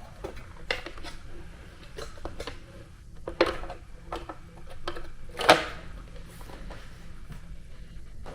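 Scattered knocks and clatters of hard plastic and metal parts being handled, about five in all, the loudest a little past halfway, as a low-flow plate is fitted to a balancing flow hood; a low steady hum sits underneath.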